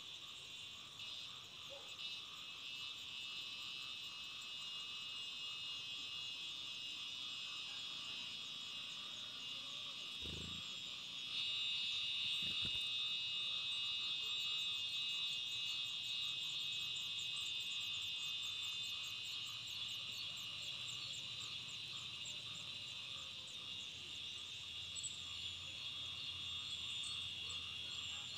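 Steady, dense chorus of insects buzzing high and continuously, stepping up in loudness about eleven seconds in. Two brief low thumps come shortly before and after that change.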